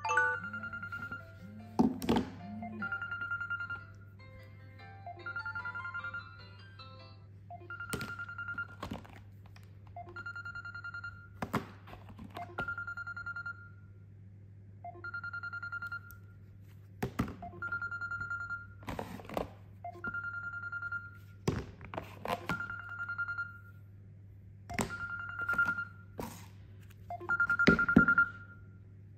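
Smartphone ringing. In the first few seconds a melodic ringtone plays over a short high beep; after that the high beep repeats on its own about every two seconds. Loud knocks and thuds fall irregularly in between, the loudest near the end.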